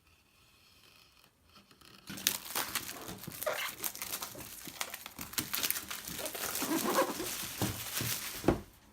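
Packaging crinkling and rustling as a product box is handled and opened, with many small clicks and knocks. It starts about two seconds in, after near silence.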